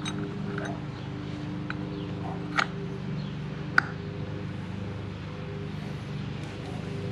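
A few sharp metal clinks as small scooter variator parts are handled and fitted by hand, the loudest about two and a half and nearly four seconds in, over a steady low hum.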